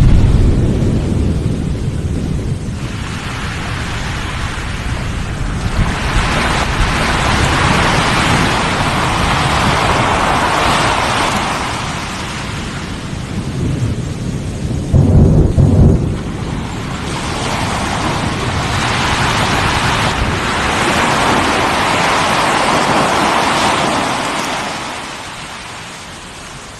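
Volcanic eruption: a deep explosive boom at the start and another about fifteen seconds in, each followed by a long rushing hiss that swells and slowly dies away.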